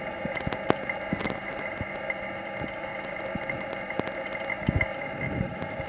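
Steady hum throughout, with a few dull thumps near the end as a gymnast's hands and feet strike a tumbling track during a tumbling pass.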